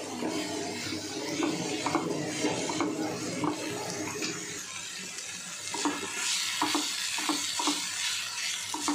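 Shredded vegetables sizzling in a frying pan while a spatula stirs and scrapes through them, with a run of short scrapes in the second half.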